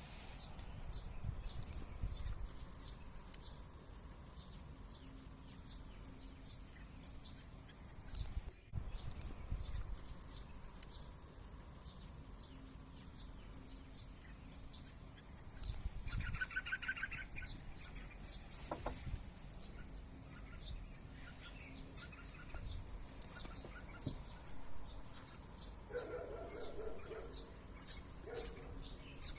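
Birds chirping: short, high chirps repeat about once or twice a second throughout, with a louder call a little past halfway and a few more calls near the end.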